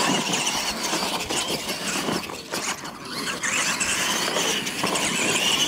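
Two electric radio-controlled monster trucks launching and racing on a dirt track: a high, wavering whine of motors and gears under full throttle over the rushing hiss of tyres on dirt, starting suddenly at the launch.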